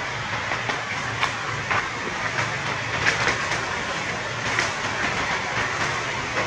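Steady outdoor background hiss with a low hum under it, broken by scattered short clicks and ticks.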